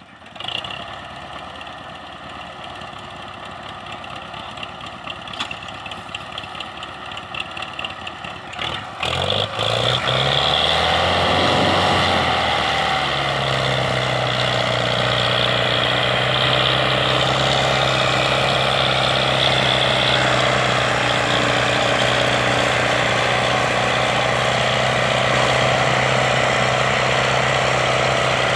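Tractor diesel engines of a Belarus 510 and an MF 375 pulling a heavily loaded sugarcane trolley together. They run low at first, rev up about ten seconds in, and then hold a loud, steady note under heavy load.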